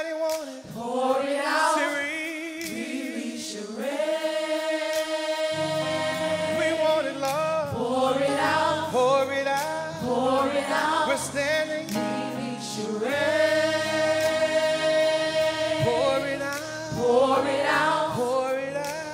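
Gospel-style worship choir singing long, held notes with a wavering vibrato and wordless runs. A low, steady accompaniment comes in about five seconds in and carries on under the voices.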